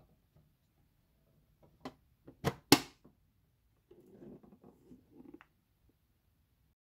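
Lid being put on a metal gift tin: a few sharp clanks about two seconds in, the last one the loudest, then soft handling sounds of the tin.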